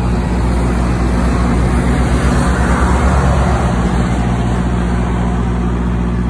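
Heavy truck's diesel engine running steadily at a low, even pitch as the tractor-trailer drives past.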